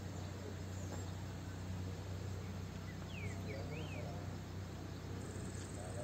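Outdoor garden ambience: a steady low hum, a few quick bird chirps about three to four seconds in, and a faint high insect buzz near the end.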